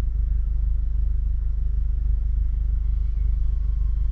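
Steady low rumble heard from inside a car cabin, with nothing sudden standing out.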